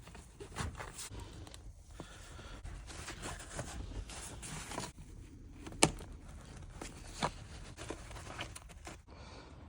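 Rear seat and carpet being fitted into a car: scattered rustling and scraping of fabric and trim, with irregular clicks and knocks, the sharpest about six seconds in and another about a second later.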